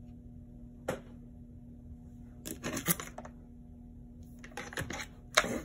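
Steady low electrical hum from a newly plugged-in Jiasheng electric nail drill, with clicks and rattles from its handpiece and cord being handled. The owner says the drill is not supposed to hum or buzz just from being plugged in, and wonders whether it is broken.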